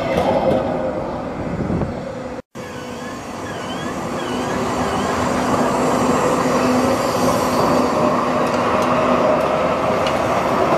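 Düwag light-rail trams running close by on street track: the rumble of wheels and motors of one tram passing, a short break in the sound about two seconds in, then another tram's wheels and motors humming, growing steadily louder as it runs along the platform.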